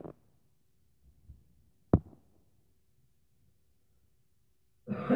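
One heavy thud from the upstairs apartment, heard through the ceiling about two seconds in: a neighbor's stomping overhead.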